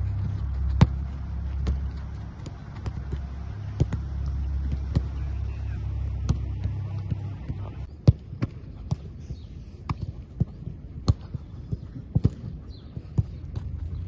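Footballs being kicked on a grass pitch: repeated sharp thuds, irregular and a couple a second. A low steady rumble lies under the first half and fades out about halfway through.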